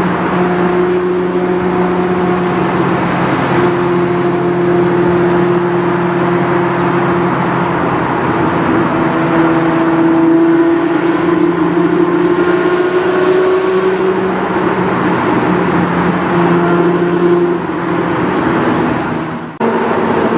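Lamborghini Murciélago V12 with an aftermarket exhaust, heard from inside the car, running at fairly steady revs with small rises and falls in pitch. The sound dips sharply and briefly near the end.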